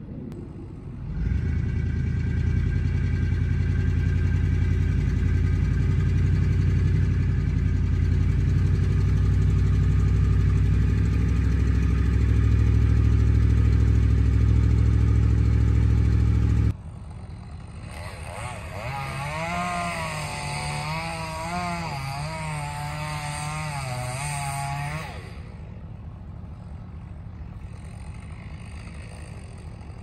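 A vehicle engine running with a loud, steady low drone that stops abruptly about 17 seconds in. It is followed by a quieter motor whose pitch wavers up and down for several seconds.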